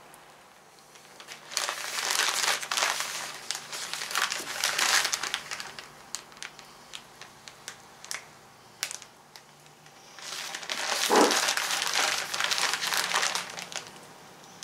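Paper application tape being peeled back off a freshly applied vinyl decal and bunched in the hand, crinkling and crackling in two long spells with scattered single crackles between.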